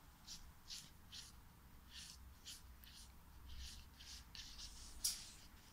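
A marker colouring in short scratchy strokes, about two a second, with one louder scrape near the end.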